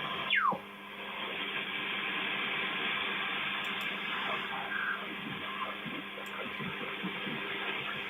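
Amateur radio receiver audio on the 80-metre band: steady band noise and hiss, with a loud whistling tone that sweeps quickly down in pitch about half a second in.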